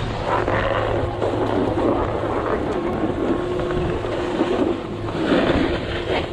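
A snowboard sliding and scraping over packed snow, with wind on the microphone, both growing as the board picks up speed. A steady hum sits underneath for the first few seconds.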